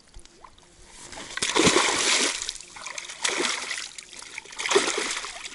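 Water splashing in three bursts as wild carp in a wire keepnet thrash in shallow water, just as a newly caught carp goes in.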